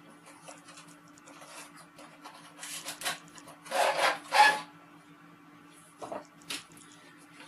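Cardboard packaging being opened and handled: scattered rubbing and scraping, with two louder scrapes about four seconds in.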